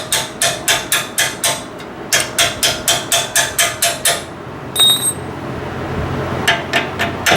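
Hammer striking metal on a truck's front suspension: quick, even taps at about three a second in two runs, a pause with a single ringing metallic clink, then a few more taps near the end.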